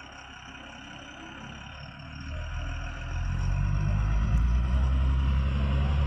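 Heavy diesel engine running, getting louder about two seconds in as it comes under load or revs up, then running loud and steady with a deep rumble.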